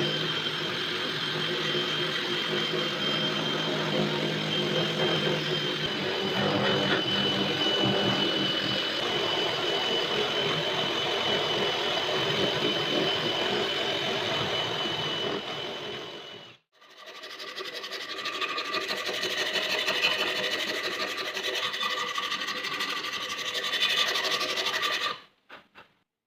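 A small power tool's motor running steadily with a high whine. It stops briefly about two-thirds of the way through, runs again, and cuts off near the end.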